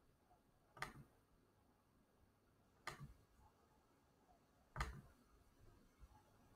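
Three faint clicks about two seconds apart, each a quick double click, against near silence: a computer mouse being clicked.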